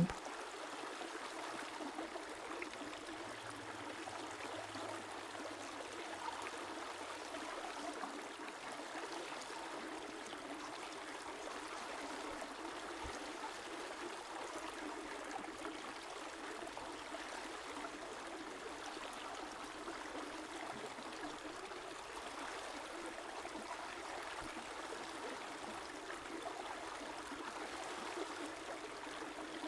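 A river running steadily, an even rush of flowing water with no breaks.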